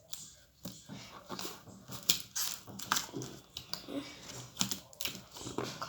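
Irregular light clicks and taps from hands working plasticine during modelling, pressing and shaping pieces at a quick, uneven pace.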